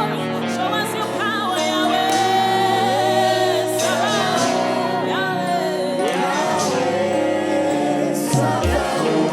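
Live gospel worship music: singers and a choir holding sustained, wavering notes over steady keyboard chords, with a bass note sliding downward near the end.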